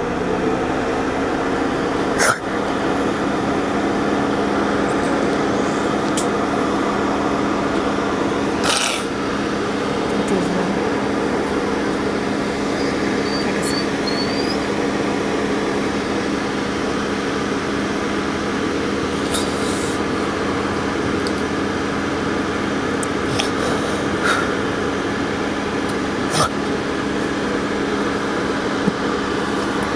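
A steady mechanical hum, like a motor running, holding the same pitch throughout, with a few faint clicks scattered over it.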